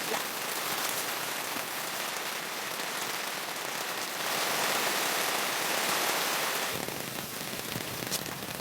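Steady rain falling, with a heavier spell in the middle and a few louder single drops hitting close by.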